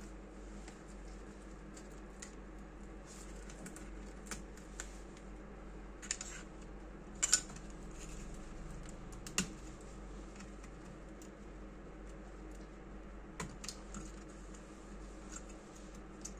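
Scattered light clicks and taps from handling the all-in-one computer's plastic and metal parts during disassembly, at irregular intervals, with a couple of sharper knocks about seven and nine seconds in, over a steady low hum.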